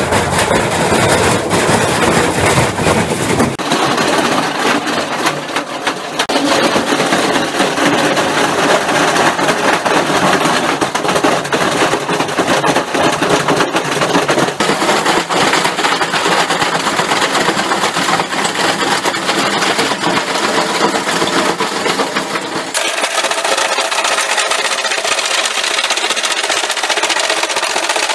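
Washing machine on its spin cycle with a brick in the drum, the brick hammering inside and the machine rattling and banging as it bounces on a trampoline: a loud, rapid, unbroken clatter. The deep rumble under it drops away about 23 seconds in.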